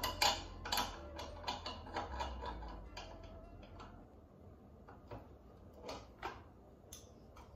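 Hand tool clicking and knocking on the metal flange of a toy vending machine while its bolts are worked loose, with irregular sharp clicks, thick in the first few seconds and then sparser.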